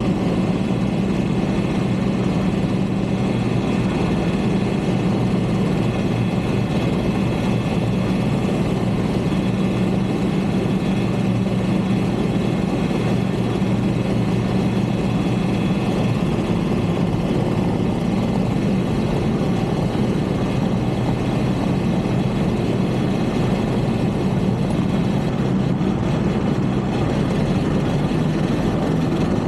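Off-road vehicle engine running steadily while driving through snow, with no change in pitch or level.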